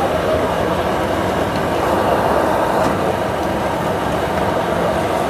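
Steady roar of a gas wok burner fed from LPG cylinders, running without a break.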